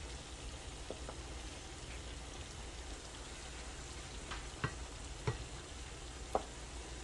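Food sizzling in a pot on the stove with a steady hiss while being stirred. A metal utensil knocks sharply against the pot three times in the second half.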